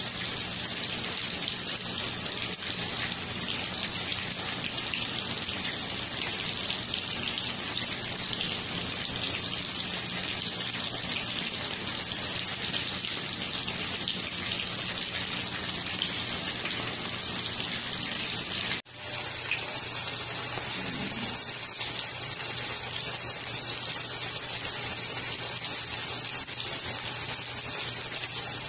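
Chicken pieces shallow-frying in hot oil in a frying pan: a steady, dense sizzle. About two-thirds of the way through it breaks off for an instant and then carries on.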